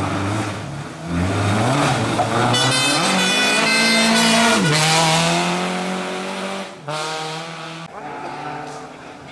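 Renault Clio rally car's engine revving hard at full throttle as it passes close by. The note climbs, holds high and loudest around the middle, drops sharply in pitch as the car goes past, then fades away.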